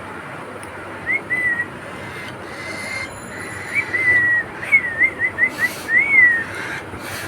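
A series of short whistled notes, each sliding up and down around one pitch. They start about a second in and quicken into a run of brief chirps in the second half.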